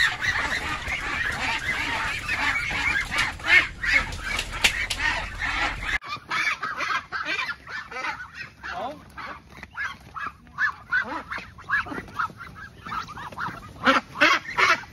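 A crowded flock of Muscovy ducks calling, many short calls overlapping in a dense chatter. About six seconds in the sound changes to separate short calls from the flock.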